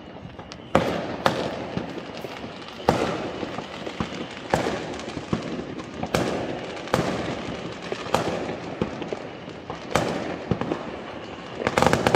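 Aerial fireworks bursting: sharp bangs at irregular intervals, about one every second or two, over continuous crackling, with a quick flurry of bangs near the end.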